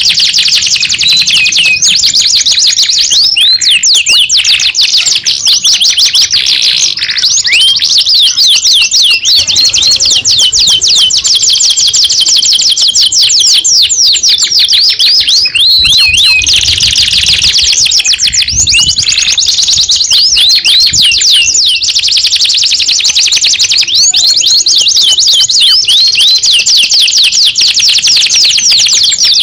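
Domestic canary singing a long, unbroken song of fast rolling trills made of rapid, high-pitched repeated notes.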